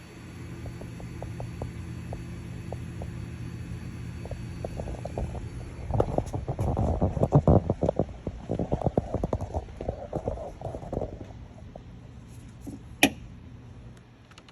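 Steady low electric hum of the 2012 Ram C/V's fuel pump still running with the van switched off, the fault behind its dead battery, which the uploader puts down to a faulty TIPM (fuse/junction box). Irregular clattering handling noises come in the middle, and a single sharp click comes near the end.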